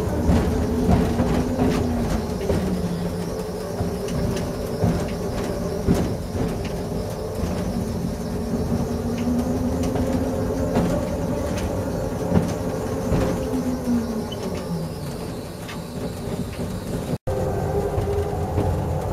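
Ride-on electric mini train running on its track, heard from its cab: a motor whine that rises and falls slowly with speed, with scattered clicks from the wheels on the rails. A brief dropout near the end.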